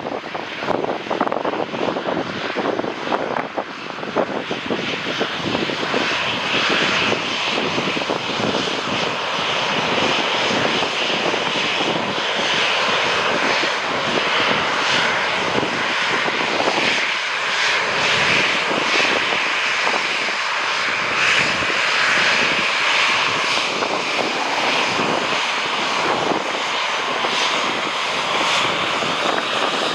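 Jet airliner engines on landing approach, a dense roar that grows louder over the first several seconds and then holds steady, with wind gusting on the microphone.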